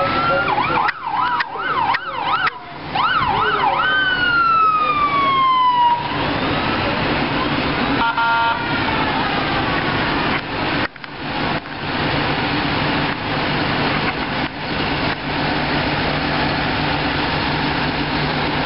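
An emergency-vehicle siren in the parade wails, switches to a fast yelp and winds down in a long falling tone about six seconds in. After that, a green John Deere tractor's diesel engine runs steadily as the tractor passes close by.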